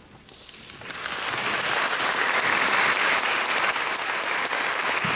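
Audience applauding, starting up about a second in and then holding steady.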